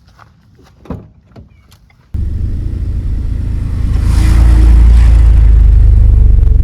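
A loud, low motor-vehicle engine rumble cuts in suddenly about two seconds in, builds over the next two seconds as it picks up, and then runs steadily. Before it there are only faint scattered ticks.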